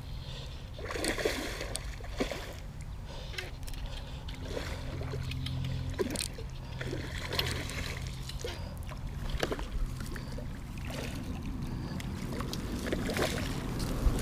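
A hooked peacock bass splashing at the water's surface while it is played on a fly rod and landed by hand, with scattered short clicks and knocks of line and rod handling. A steady low hum runs underneath from about three seconds in.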